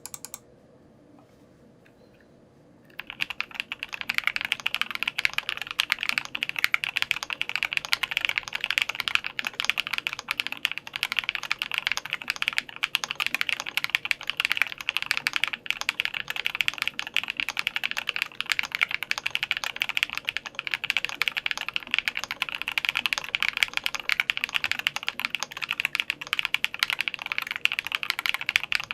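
Fast, continuous typing on a VARO JULY Alice-layout mechanical keyboard with lubed SW Vintage linear switches on a polycarbonate plate, under clone GMK keycaps. It starts about three seconds in after a short quiet.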